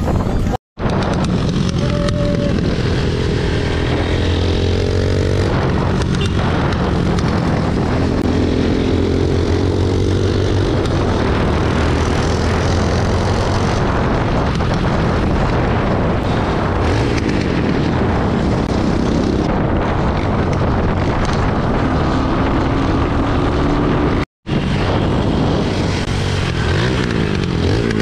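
Motorcycle engine running under way, its pitch rising and falling with the throttle, over a low rumble of wind on the microphone. The sound cuts out briefly twice.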